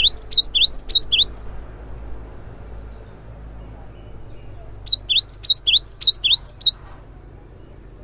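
Cinereous tit (gelatik batu) singing fast runs of sharp, high, repeated two-note whistles. One run ends about a second and a half in, and a second run of the same phrases comes from about five seconds to nearly seven.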